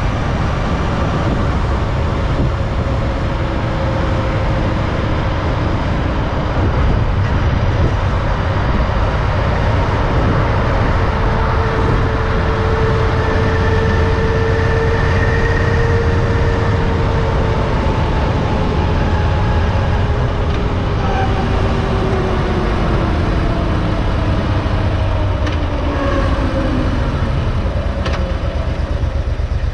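Motorcycle riding at highway speed: steady engine note under heavy wind rush on the microphone, the engine note dropping in pitch toward the end as the bike slows.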